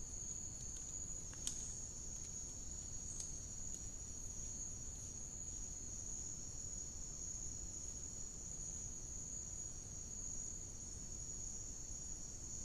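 Chorus of insects in the forest at night, a steady high-pitched drone over a low rumble of microphone noise. Two faint clicks sound in the first few seconds.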